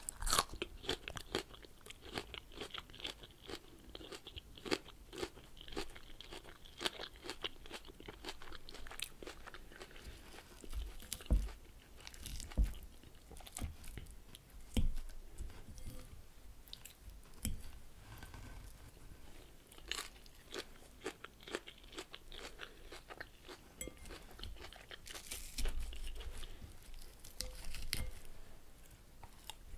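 Close-miked chewing of crunchy raw leafy salad: irregular crisp crunches and mouth sounds as the leaves are bitten and chewed.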